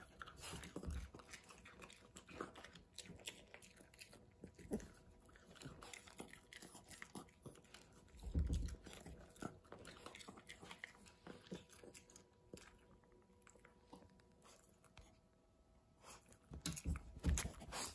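A small dog chewing a homemade peanut butter dog cookie: faint scattered bites and chews, with louder bursts about eight seconds in and near the end.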